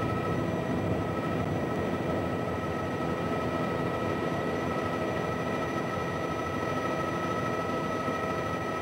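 Bell JetRanger turbine helicopter in cruise flight, heard from inside the cockpit: steady engine and rotor noise with a steady high whine over it.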